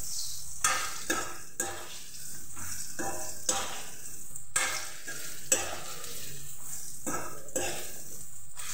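Steel spoon scraping and stirring jujube fruits frying in oil in a steel kadai, about two ringing scrapes a second over a steady sizzle.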